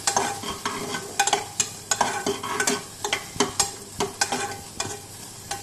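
Steel spoon scraping and knocking against a small nonstick saucepan, about three strokes a second, as pumpkin pieces are stirred and sautéed in a little hot oil, with a faint sizzle underneath.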